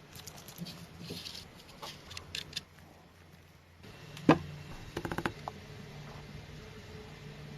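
Light clicks, taps and small rattles of hand work on parts, with one sharper knock about four seconds in and a quick run of clicks just after, over a faint low hum.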